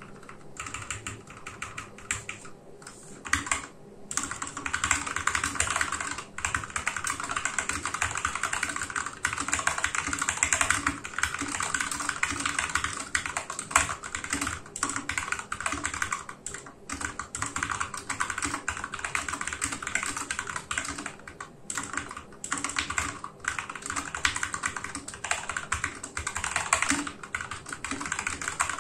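Typing on a Vortexseries VX64 Lite 60% mechanical keyboard with Gateron Yellow switches lubed with Krytox, an extra case dampener and stock keycaps. It is a dense, continuous run of keystrokes, softer for the first few seconds and broken by a few short pauses.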